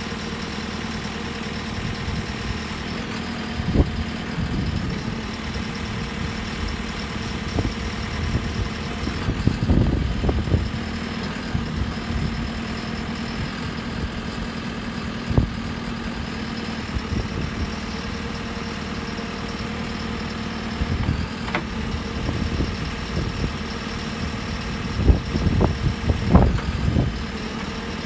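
Diesel engine of a JCB 3CX backhoe loader idling steadily, with occasional clunks and knocks, a cluster of them about ten seconds in and several near the end.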